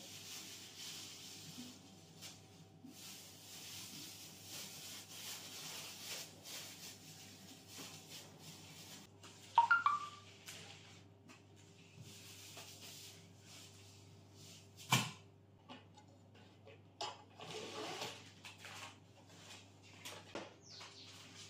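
Plastic food bags rustling and crinkling as they are handled and packed, with a loud crackle about ten seconds in and a single sharp click about five seconds later.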